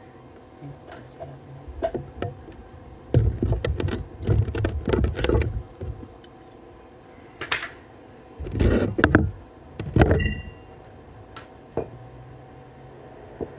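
Arc welding in short bursts: the arc crackles and spits for a second or two at a time, four times, with clicks and knocks in the pauses. A steady electrical hum lies underneath.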